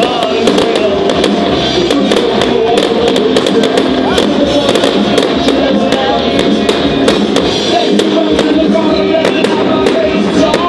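Music playing loudly with fireworks going off through it: many sharp bangs and crackles from aerial shells bursting, several a second.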